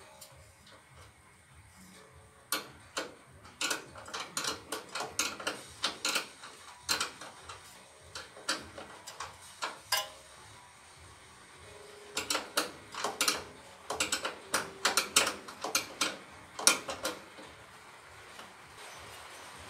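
Irregular small metallic clicks and clinks of hand tools and parts being worked at a car's alternator wiring terminals, in two runs of several seconds each with a quieter stretch between.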